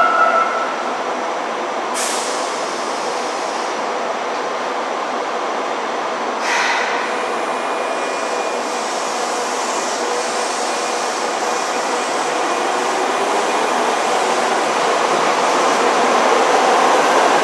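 Nagoya subway Tsurumai Line 3000 series train standing at an underground platform with a steady hum, broken by a short hiss of compressed air about two seconds in and another about six and a half seconds in. In the last few seconds it pulls away, growing louder with a faint rising motor whine as it gathers speed.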